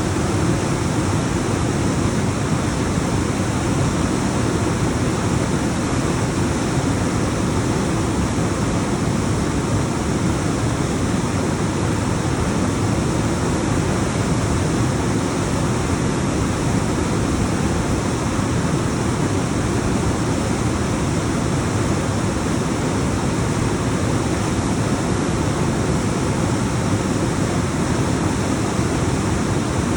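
Alpine waterfall: water rushing and tumbling down rocks in a loud, steady roar without let-up.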